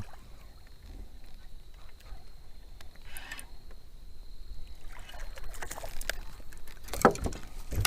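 Faint water sounds of a hooked bass being fought and reeled to the boat, with several sharp clicks of handling near the end.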